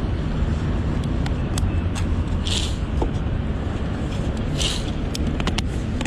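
Street traffic: a steady low rumble of passing road vehicles, with two short hisses about two and a half and four and a half seconds in, and scattered small clicks.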